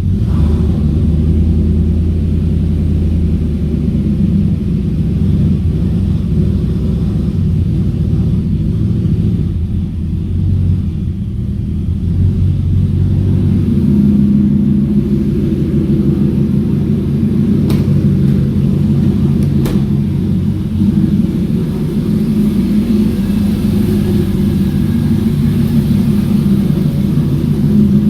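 2003 Ford SVT Lightning's Whipple-supercharged 5.4-litre V8 idling steadily with a deep rumble, warming up after a cold start.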